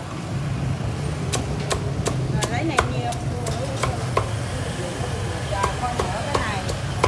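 Cleaver chopping crispy-skinned Vietnamese roast pork (heo quay) on a round wooden chopping block: a run of sharp chops, about two or three a second at first, thinning out in the second half.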